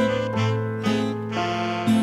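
Music: an acoustic guitar strummed in a steady rhythm, about two strums a second.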